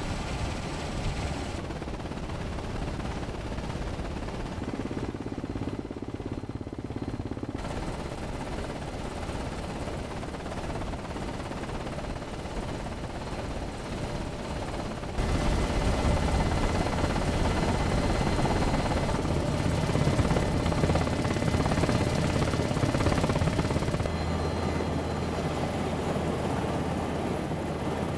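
NH90 Caïman military transport helicopter, its rotor and turbines running steadily across several shots. It is heard from inside the open-door cabin and from outside as it flies low, and gets louder about halfway through.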